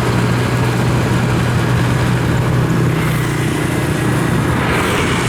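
Engine of a farm machine hauling harvested rice, running steadily as it drives off, with a constant low hum and no change in pitch.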